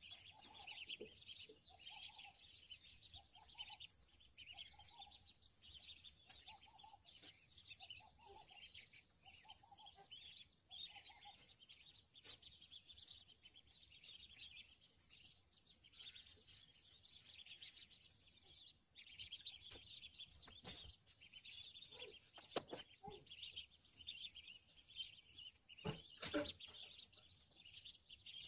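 Ducklings peeping faintly, many short high-pitched chirps overlapping throughout. For the first ten seconds or so, a softer, lower call repeats about once a second. A few sharp clicks come later.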